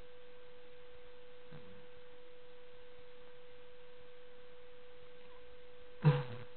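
A steady hum at one pitch throughout. About a second and a half in there is a faint throaty sound, and near the end a short, louder grunt with a falling pitch from a man whose mouth is packed with dry saltine crackers.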